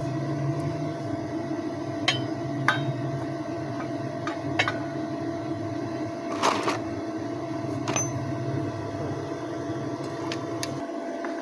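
Stick welding arc crackling steadily, with a low drone beneath it and sharp pops every second or two; the low drone stops near the end.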